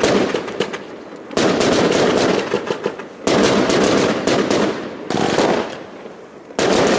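Aerial fireworks bursting overhead, one every second and a half to two seconds: each a sudden bang followed by a dense crackle of small pops that fades before the next.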